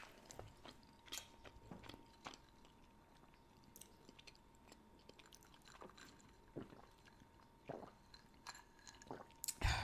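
A person chewing food close to the microphone: soft, scattered wet smacks and clicks, with a louder bite or mouth noise near the end.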